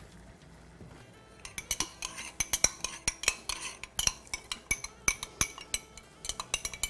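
A metal spoon stirring cornstarch into water in a small glass, clinking quickly and irregularly against the glass sides, starting about a second and a half in.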